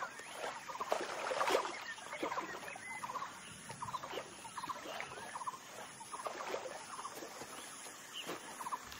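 A sambar stag wading and splashing through shallow water in the first couple of seconds, over a steady background of short rattling animal calls repeated about once a second.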